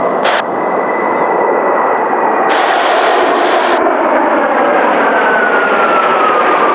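Formation of Kawasaki T-4 jet trainers making a low pass, turbofan noise building, with a high whine that holds steady and then falls in pitch from about five seconds in as the jets go by.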